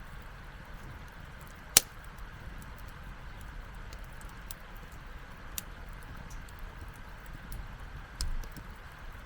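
Wood campfire crackling, with scattered small pops and one loud sharp pop about two seconds in. A low rumble of wind runs underneath, with a brief louder low gust or thud near the end.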